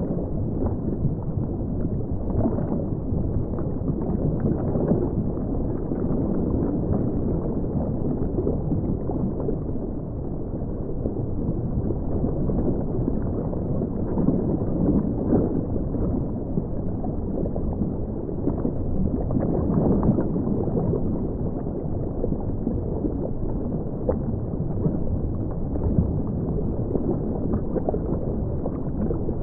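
Underwater drowning sound effect: a continuous muffled churning of water with dense bubbling and gurgling, dull and bass-heavy with no bright top.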